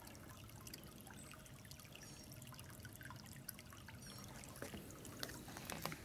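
Small brook babbling and trickling, faint and steady.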